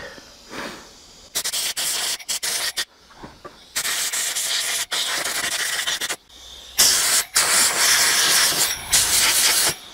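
Compressed-air blow gun on a workshop airline, blasting loosened dirt and carb cleaner off a lawnmower carburettor: three long bursts of hiss, the first stuttering in short pulses.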